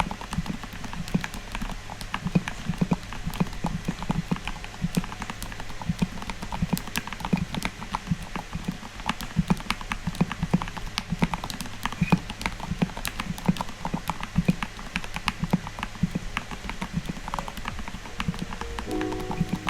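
Typing on a Royal Kludge RK68 mechanical keyboard with Gateron Yellow linear switches and PBT OEM-profile keycaps: a steady, irregular run of keystroke clacks.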